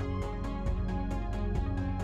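Background music with sustained notes over a steady beat of about four hits a second.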